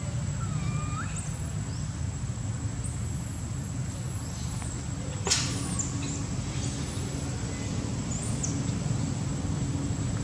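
Outdoor ambience: a steady low rumble of distant traffic, with several short, thin, high-pitched chirping calls scattered through it, and a single sharp click about five seconds in.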